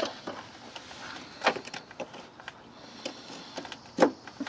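Hands working the air spring solenoid's plastic electrical connector and wiring harness: a few sharp clicks and knocks over quiet rustling, one right at the start, one about a second and a half in and the loudest about four seconds in.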